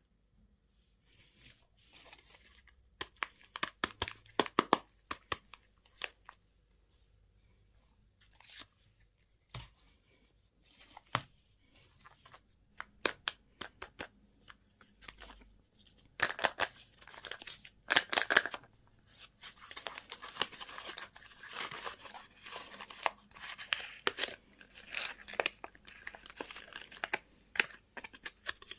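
Plastic candy and toy packaging being torn open and crinkled by hand, with irregular clicks and rustles that grow denser and louder about halfway through.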